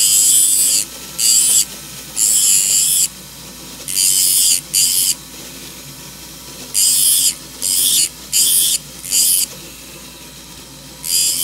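Sanding disc in a rotary handpiece grinding the metal of a ring's channel setting in short hissing passes, about ten in all, each under a second. This is the setting's edge being curved and cleaned up after the stone is set.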